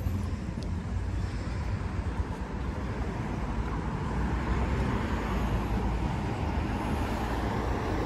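Road traffic noise: a steady hiss and low rumble of cars on the street, swelling a little in the second half.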